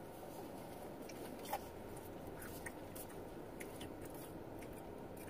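Faint chewing and crunching of french fries, a few soft crunches spaced irregularly, one a little louder about a second and a half in, over the steady low hum of a car cabin.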